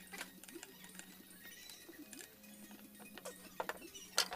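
Quiet background music holding low notes, with scattered small clicks; two sharp metallic clicks near the end, the loudest sounds, as a metal corner clamp is set against the plywood panels.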